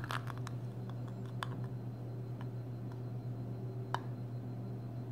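Steady low hum of a small room with a few faint, scattered light clicks, the clearest about four seconds in.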